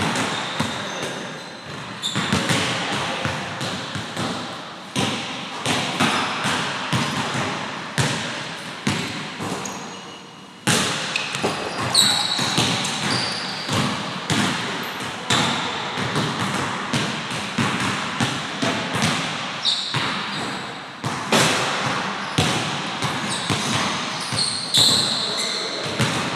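Basketballs bouncing on a hardwood gym floor: irregular thuds in quick succession, with short high squeaks from sneakers on the floor now and then.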